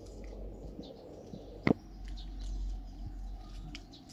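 Outdoor ambience: faint bird chirps over a steady low hum, with one sharp click a little under two seconds in.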